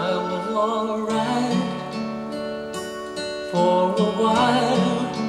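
A pop song with strummed acoustic guitar and a melody line that wavers with vibrato, played back over Wharfedale 121 bookshelf speakers bi-amped with two small Class-D amplifiers as a sound test.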